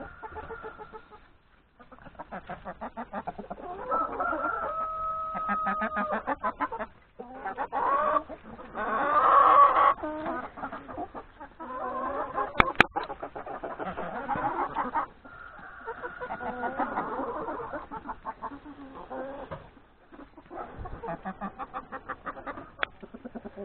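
A flock of hens clucking continuously, with roosters crowing among them. A sharp click comes about halfway through.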